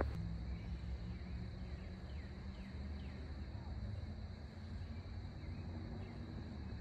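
Outdoor open-country ambience: a steady insect drone with a few short falling bird chirps over a constant low rumble.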